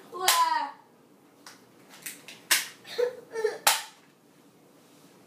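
A child's short falling cry, then about five sharp smacks or claps over the next two seconds, the loudest about two and a half and three and a half seconds in, with brief voice sounds between them.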